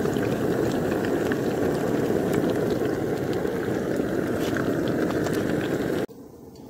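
Hot oil sizzling and crackling steadily as chicken lollipops deep-fry in a pan. The sizzle stops abruptly about six seconds in.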